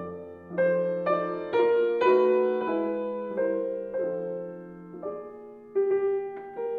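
Background music: a slow piano piece, notes and chords struck one after another and left to fade.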